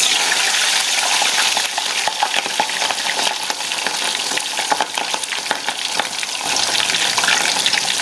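A whole chicken, brushed with butter and spice paste, frying in hot oil in a stainless steel pot: a dense, steady sizzle full of small pops, starting as the bird goes into the oil.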